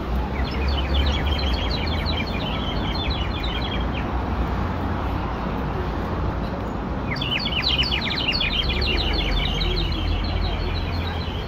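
Small birds chirping in two quick, rapid bouts, one near the start and one in the second half, over a steady low rumble.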